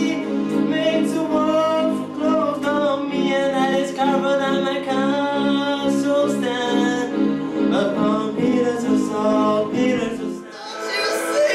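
A man singing into a microphone over his own electronic keyboard accompaniment: held chords under a slow sung melody. About ten seconds in, the music breaks off and a different, brighter performance starts.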